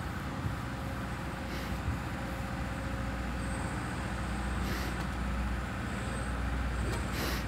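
Excavator's diesel engine running steadily as the boom swings, with a few short bursts of higher noise about a second and a half in, near five seconds and near the end.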